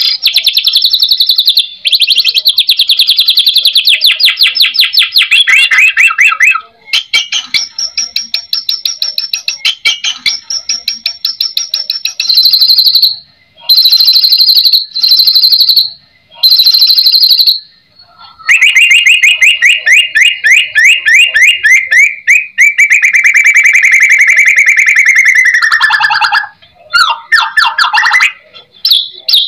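White-rumped shama (murai batu) singing in long, loud phrases of fast repeated rattling notes, broken by a few short pauses. The last phrase is lower-pitched and drops in pitch near the end.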